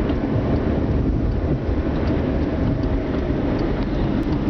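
Steady low rumble of a car's engine and tyres on a rough dirt road, heard from inside the cabin, with faint scattered clicks.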